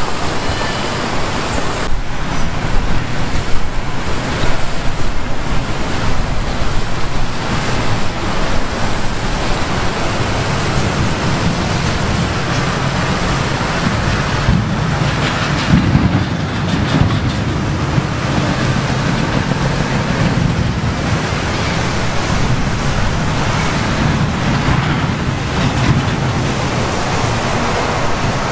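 Steady rushing and splashing of a two-tiered fountain's many water jets falling into its basin. A low rumble swells in the middle and fades.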